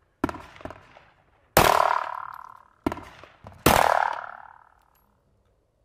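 Sharp pistol shots from a 9mm Sig Sauer M17 striking steel targets: five hits, the two loudest followed by a long metallic ring that fades over about a second.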